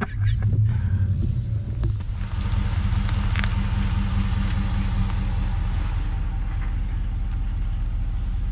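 RAM pickup truck rolling slowly down a steep slope, heard from a camera mounted on the outside of the truck: a steady low engine and tyre rumble with an even hiss over it.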